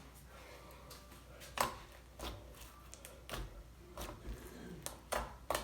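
Slime being kneaded and stretched by hand, giving irregular short clicks and pops spaced roughly half a second to a second apart.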